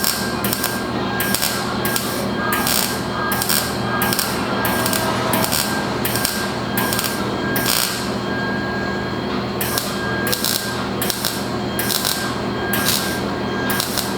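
MIG welder laying stitch welds on a Mustang's sheet-steel body: short crackling bursts about twice a second, with a pause of about a second and a half a little past halfway, over a steady hum. The weld is burning through where the metal was ground thin.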